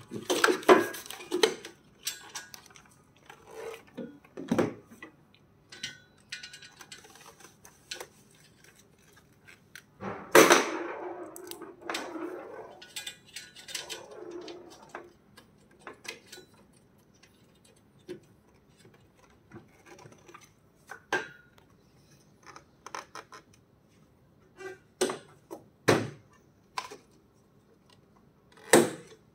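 Scattered knocks, clicks and clatters of metal treadmill frame parts being handled and fitted together by hand. There are louder clattering bursts near the start and about ten seconds in, and a few sharp knocks near the end.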